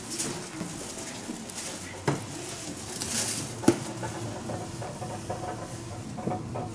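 Scattered light taps and knocks over a faint murmur, with two sharper knocks, one about two seconds in and one near the middle.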